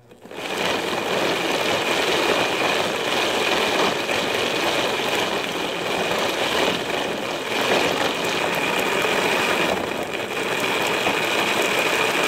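Handheld rotary tool running steadily, turning a train of cardboard gears that drives a cardboard conveyor belt. A loud, even whirring with a steady high whine, which starts abruptly just as the sound begins.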